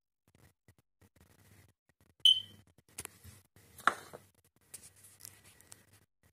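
Faint handling rustles and light knocks on a kitchen counter, with one sharp ringing clink about two seconds in and two sharper clicks a second or so later.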